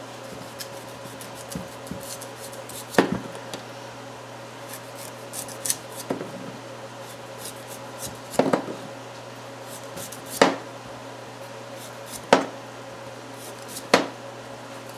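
Chef's knife slicing the tough peel off a hard raw jicama on a cutting board: a series of sharp cuts and knocks, about six, a couple of seconds apart, with small scraping ticks between them.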